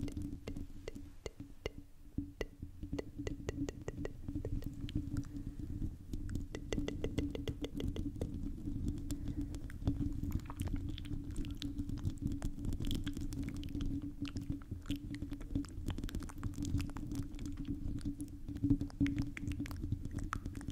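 Hands cupping and rubbing over a microphone's metal mesh grille, heard very close: a muffled low rumble with many quick clicks and scratches of long fingernails on the mesh.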